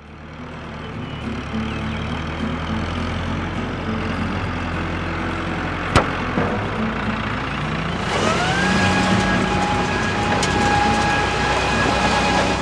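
Cartoon tractor engine sound effect running with a low, steady rumble. There is a sharp click about six seconds in, and from about eight seconds a tone rises and then holds steady over the engine.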